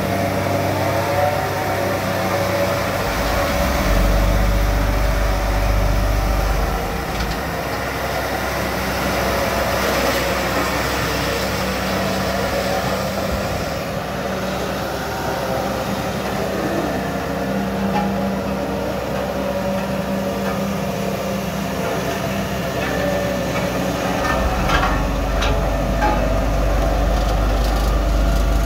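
Caterpillar CS-433C single-drum roller's diesel engine running steadily as the roller drives. A deep low hum strengthens about three seconds in and again near the end, and a few knocks come late on.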